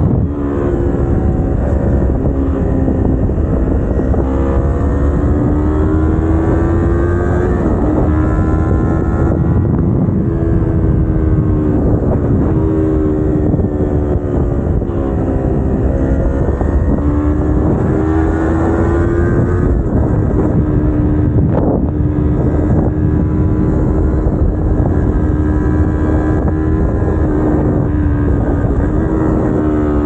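Kawasaki Ninja 250R's parallel-twin engine pulling the bike along, its pitch climbing and falling with throttle and stepping sharply at several gear changes. Wind rushes over the microphone underneath.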